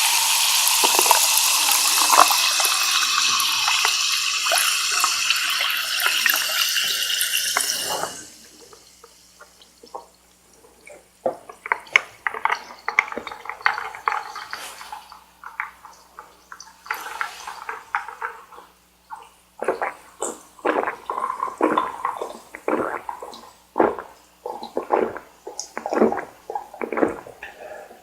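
Liquid pouring steadily into a cup for about eight seconds, then stopping abruptly. After that come close-miked eating mouth sounds: irregular wet clicks, smacks and chewing noises.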